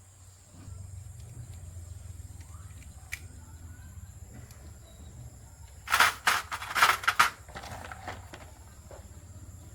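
A low steady hum, broken about six seconds in by a quick run of about six sharp knocks or clatters.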